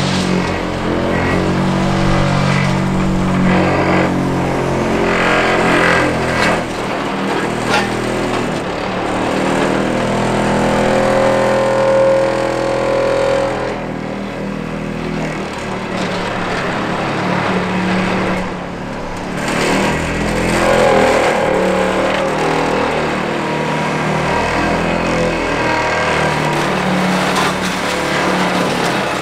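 Liebherr 946 excavator's diesel engine running under hydraulic load, its pitch rising and falling as the machine works. Scattered knocks and crunches of demolition debris come through it. A steady high squeal holds for about two seconds some eleven seconds in.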